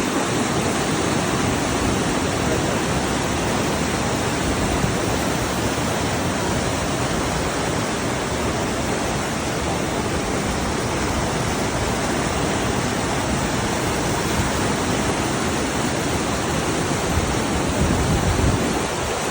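Fast glacial river water of the upper Ganga (Bhagirathi) rushing over rocks: a loud, steady, even rush of water.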